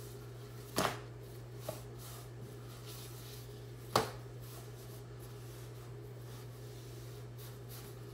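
Pizza dough slapped down onto a semolina-dusted stone countertop while being stretched by hand: two sharp slaps about three seconds apart, the first under a second in, with a softer tap between them. A steady low hum runs underneath.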